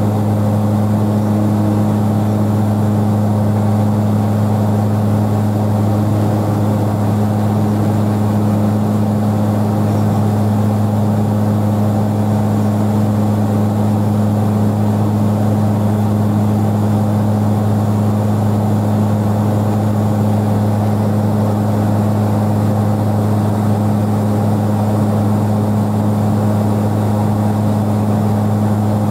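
Engine drone heard inside the cabin of a small airliner in cruise flight: a loud, steady deep hum with a second hum above it, over a constant rush of air.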